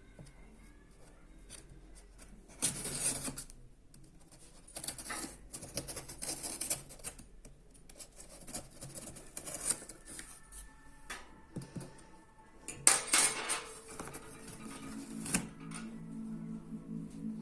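Laptop packaging being handled and opened: irregular bursts of scraping, rustling and knocking of cardboard and plastic, loudest about three seconds in and again near thirteen seconds. Faint music plays underneath.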